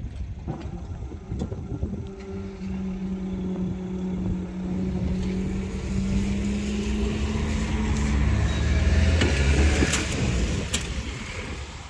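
Level-crossing barrier mechanism humming steadily as the barriers lift. Then a road vehicle drives over the crossing, rising to its loudest near the end, with two sharp knocks as it goes over the rails.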